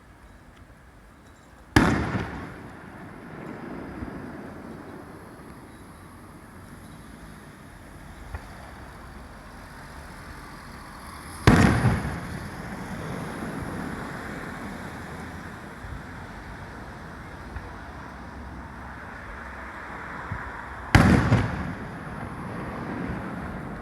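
Three loud firework shell bursts, about ten seconds apart, each a sharp bang followed by a rumbling echo that fades over a second or two.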